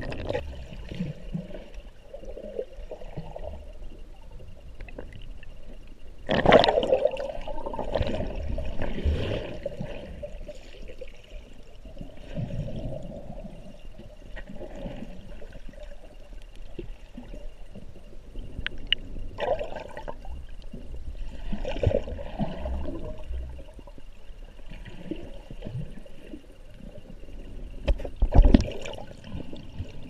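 Muffled water rushing and gurgling around a camera held underwater in the sea, rising and falling unevenly, with louder surges about six seconds in and near the end.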